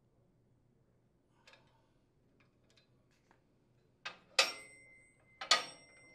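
A few light clicks of metal parts being handled, then two sharp metal clanks, each a quick double strike, leaving a high ringing that lingers: the steel impeller shredder blade knocking as it is moved by hand inside the shredder's metal housing.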